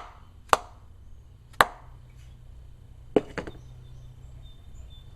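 Hammer blows driving a square-ended tap into the square recess of an oil galley plug in a MerCruiser 3.0 engine block: three sharp strikes in the first two seconds, then two lighter taps in quick succession about three seconds in.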